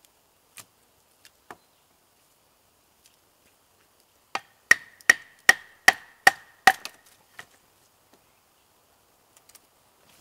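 A wooden baton striking the spine of a large knife blade to split a stick, a batoning stroke of wood on steel. After a couple of light taps, about four seconds in, seven sharp strikes come in quick succession, about two to three a second, each with a short metallic ring.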